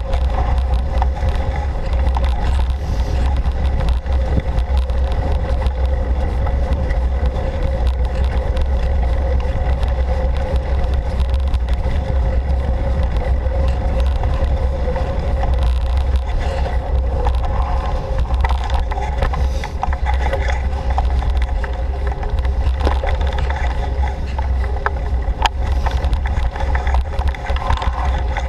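Steady rumble of wind buffeting the microphone and tyres rolling over a dirt forest trail during a fast bicycle ride, with scattered clicks and rattles from the bumpy ground.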